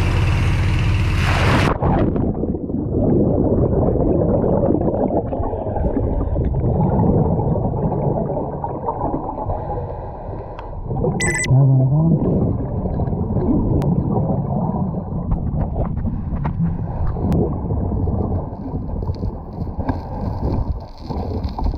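A diver going over the side into the sea. About two seconds in, the sound turns abruptly dull and muffled as the camera goes under. It is followed by steady underwater rushing and gurgling of water and bubbles as he swims down to the bottom.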